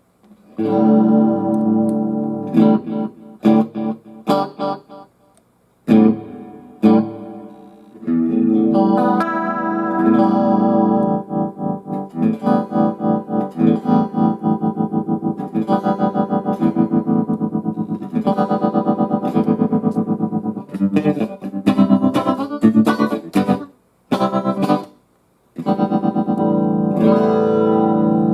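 Electric guitar played through a Fender Super Champ XD 15-watt tube amp (6V6GT power tubes) with its built-in digital effects on: chords with a distorted edge and some chorus, the level pulsing rapidly through the middle stretch, with two brief breaks in the playing.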